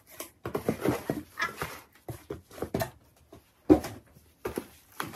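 Cardboard shipping box being opened and handled: flaps and cardboard rustling and scraping in short, irregular bursts, with one sharp knock a little under four seconds in.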